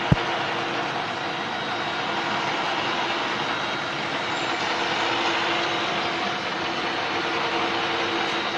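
Steady machinery noise, with one sharp click just after the start.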